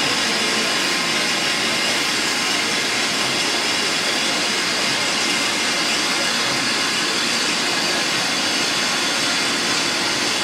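Steam locomotive of the Soviet Э class standing and hissing steadily as steam escapes, an even, unbroken hiss that holds at the same level throughout.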